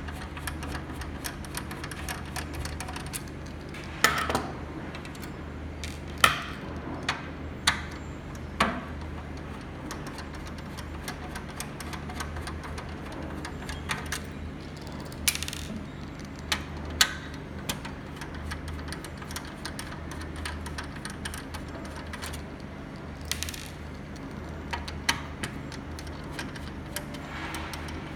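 Irregular small metallic clicks and taps of a screwdriver taking out the screws that hold a matrix switcher's control board, over a steady low hum.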